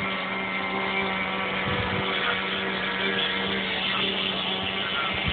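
Electric motor and propeller of an MXS-R radio-controlled model plane in flight, a steady drone that holds one pitch, with brief low buffets of wind on the microphone about two seconds in.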